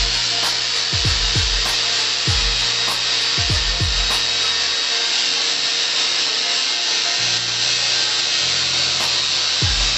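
Hip-hop beat with deep bass notes that slide down in pitch and ticking hi-hats, over a steady rasping noise of tool work. The bass drops out for about two and a half seconds in the middle.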